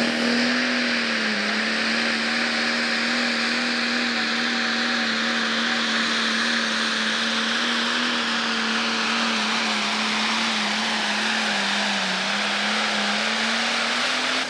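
Turbocharged diesel engine of a Pro Stock pulling tractor running flat out under full load during a pull. It holds a steady high pitch over a dense hiss, with a slight dip about a second and a half in and a brief waver near the end.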